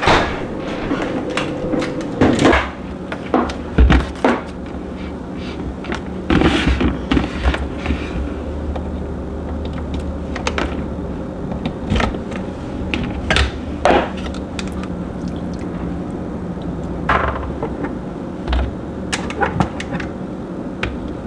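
Scattered knocks, clicks and light plastic clatter as eggs and the clear lid are handled on a MyMini electric egg cooker, over a steady low hum.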